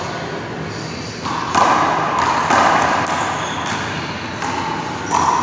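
Small rubber handball hitting the hard court, several sharp, irregularly spaced slaps, each echoing in the large hall.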